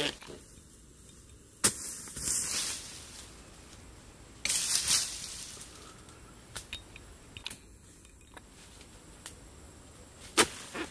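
Rustling of dry leaves and palm fronds underfoot in two short bursts, with a few sharp single knocks.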